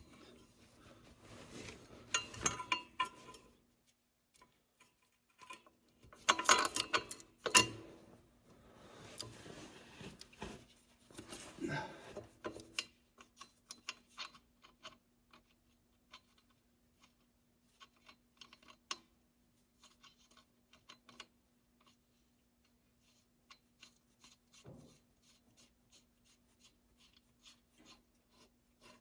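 Metal tools and parts clinking, rubbing and scraping during hands-on repair work, busiest in the first dozen seconds with a couple of louder clattering bursts, then only scattered light ticks. A faint steady hum runs underneath.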